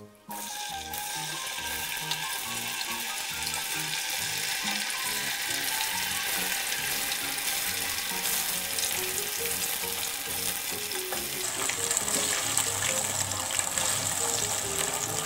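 Tofu cubes deep-frying in hot oil, a dense sizzling and crackling that starts suddenly as the tofu goes in. It turns brighter and hissier about two-thirds of the way through.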